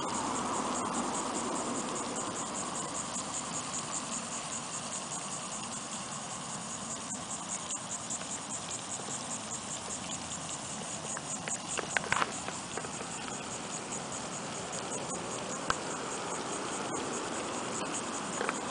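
Insects chirring in a steady, rapidly pulsing high-pitched trill over outdoor ambience, with a few sharp clicks about twelve seconds in and one more a few seconds later.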